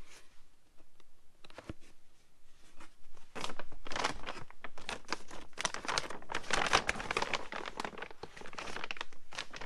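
A frosted plastic packaging bag crinkling steadily as it is picked up and handled, starting a little over three seconds in. Before it, a light knock about two seconds in.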